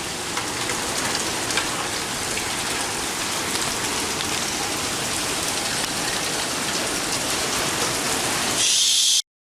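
Heavy rain and strong wind of a severe thunderstorm, an even, steady hiss, with a louder surge of hiss just before it cuts off suddenly near the end. The filmer takes the wind for tornadic winds.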